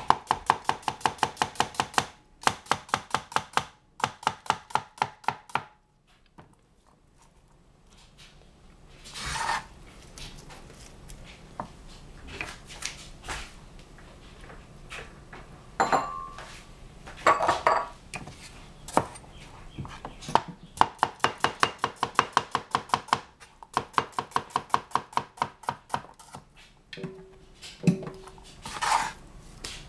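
Cleaver slicing cucumbers on a cutting board: rapid runs of even chops, several a second, broken by pauses with scattered single knocks.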